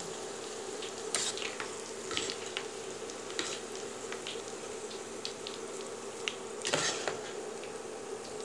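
Sliced onions frying golden in hot oil and ghee, a steady sizzle. A steel slotted spoon scrapes and clinks against the pot a few times as they are stirred and lifted out.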